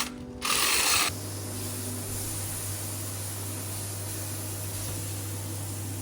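A power tool running briefly and cutting off about a second in, followed by a steady low hum.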